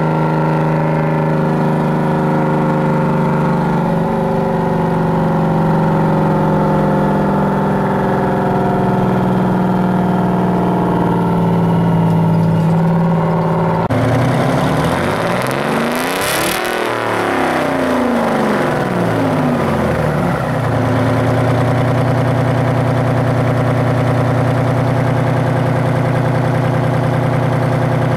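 Detroit Diesel 6-71 two-stroke inline-six in a Ford L9000 truck running loud and steady under load on a hill climb, heard from inside the cab. About halfway through the sound changes abruptly to the engine running steadily at a lower pitch beside its straight stack, with a brief whoosh of something passing close by in between.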